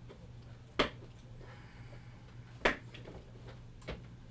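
Handling of firework electric initiators: two sharp clicks about two seconds apart and a fainter one near the end, over a steady low hum.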